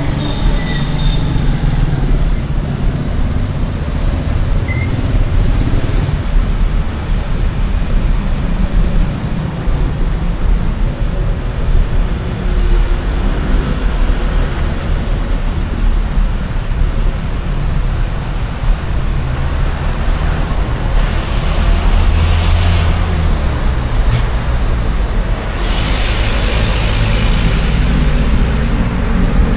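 Steady road traffic: the rumble of cars, buses and trucks passing close by, with two louder hissing rushes of passing vehicles in the later part.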